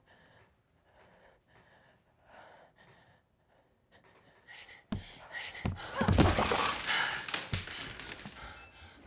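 Quiet breathing, then a sudden thud about five seconds in followed by a few seconds of louder scuffling with knocks, thumps and gasps.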